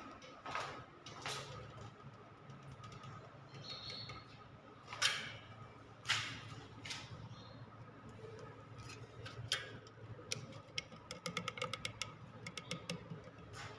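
Hand caulking gun being worked to squeeze out silicone sealant: scattered clicks and a few sharper knocks, then a quick run of trigger clicks in the last few seconds.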